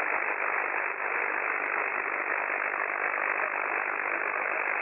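Steady hiss of band noise from an Icom IC-7610 transceiver's receiver on the 6 m (50 MHz) band in single-sideband mode, with no station readable through it. The hiss is held within the narrow speech passband of the receiver's filter.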